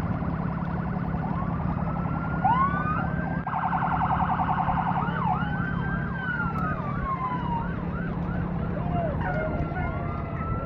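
Emergency vehicle sirens sounding, switching between slow rising-and-falling wails, quick repeated yelps and a rapid warble, several patterns at once at times, over a steady low hum.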